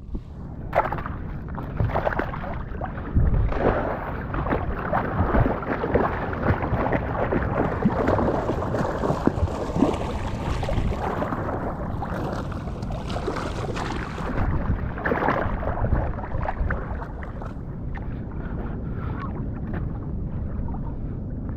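Sea water sloshing and splashing close to the microphone, with irregular knocks and rustles throughout.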